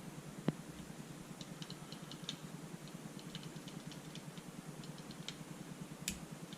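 Light, irregular clicking and ticking, with one sharper click about half a second in, over a steady low hum.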